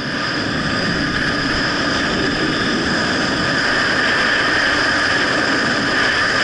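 Steady rush of wind over an action camera's microphone at about 65–70 km/h on a fast ski descent, mixed with the hiss of skis running on packed snow. It grows slightly louder as the speed rises.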